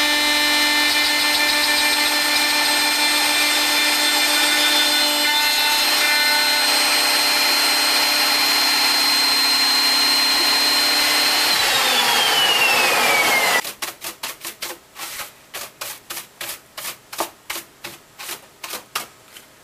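Home-built CNC router spindle running with a steady whine while milling compact laminate panel. About twelve seconds in its pitch falls as it winds down, then the loud noise cuts off suddenly. A quieter run of light clicks follows, about two to three a second.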